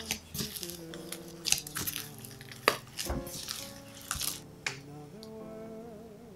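A gloved hand working soft whole wheat bread dough in a glass bowl, pressing, squeezing and tearing it: a string of short, wet, sticky squishing and crackling noises that thin out about five seconds in. Soft background music runs underneath.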